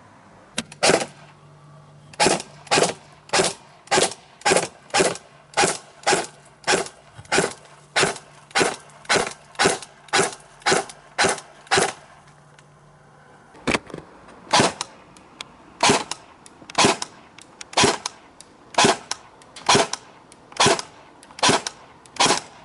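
Airsoft M4-style rifle fitted with a B&T tracer unit firing single shots in a steady series, about two a second. The shooting breaks off for a second or so near the middle and then resumes.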